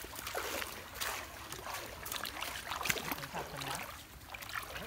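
Water sloshing and splashing as people wade through a shallow river, with faint voices underneath.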